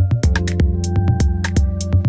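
Electronic background music with a steady beat, low kick-drum thumps about twice a second with crisp hi-hat ticks between them.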